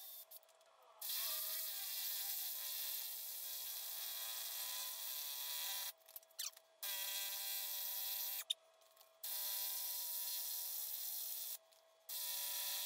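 Ryobi cordless drill boring a hole into a concrete slab floor. It starts about a second in and runs in stretches of a few seconds, with brief pauses between them.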